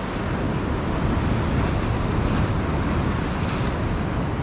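Ocean surf washing and breaking over jetty rocks, a steady rushing wash, with wind buffeting the microphone.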